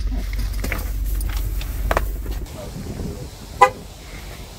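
Low vehicle rumble with a few clicks and a knock about two seconds in, then the level drops. Near the end comes a single short chirp from a Ram pickup's horn, typical of the truck being locked with its key fob.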